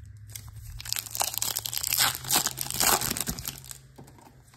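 Foil wrapper of a 2024 Bowman Baseball card pack being torn open and crinkled by hand: a dense run of crackles that starts about a second in, is loudest in the middle and dies away near the end.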